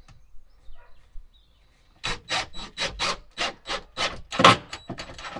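Cordless drill cutting and driving into a timber bed-frame bar, heard as a run of short rasping strokes at about three a second, starting about two seconds in.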